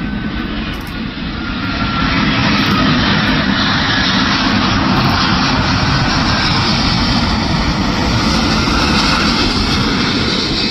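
Airbus A350 airliner on final approach with its landing gear down, its Rolls-Royce Trent XWB turbofans passing low overhead: a loud, steady jet rush that swells about two seconds in and then holds, with a faint falling whine in the first two seconds.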